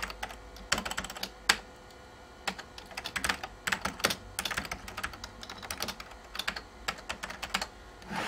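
Typing on an Apple Keyboard II: quick runs of plastic key clicks broken by short pauses between words and lines, with a few louder single key strokes.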